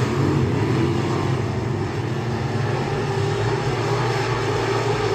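Race car engine running at steady high revs, a constant loud drone.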